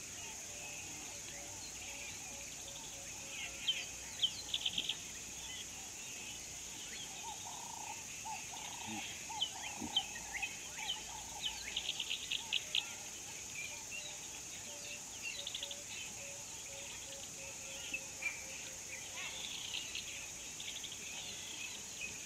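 Morning bird chorus: many birds chirping with short rapid trills, over a steady high-pitched insect drone. Two runs of a low, evenly repeated note sound, one early and one in the second half.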